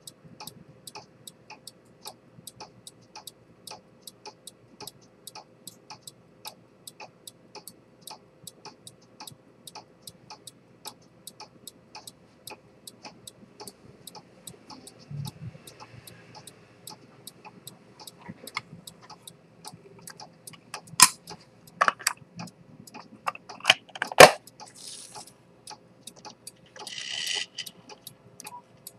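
Pocket chronometer with an Earnshaw spring-detent escapement, ticking steadily at a few ticks a second. Near the end several much louder sharp knocks break in, followed by a brief rustle.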